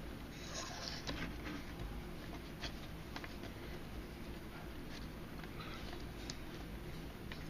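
Paracord being handled and pulled through while tying a bracelet: faint rustling and scraping of the cord with a few small clicks, over a steady low hum.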